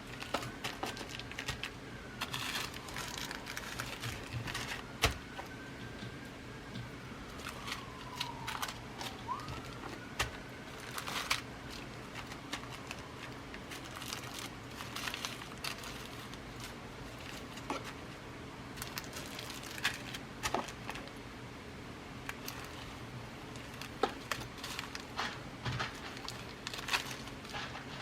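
Glass seed beads being rummaged through by hand, with packets crinkling and beads clicking lightly in a constant, irregular scatter. A faint whistle-like tone glides up and down a few times during the first ten seconds or so.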